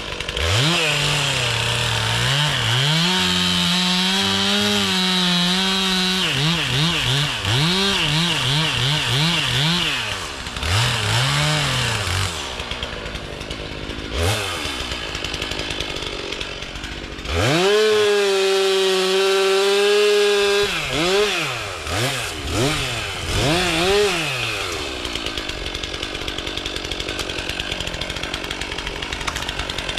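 Two-stroke chainsaw cutting a log: it runs at full throttle for several seconds, twice, with quick throttle blips between, then drops back to idle for the last few seconds.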